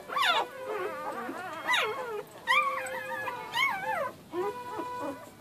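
Litter of four-day-old puppies whining and squealing, many rising-and-falling cries overlapping, with a few held notes between them.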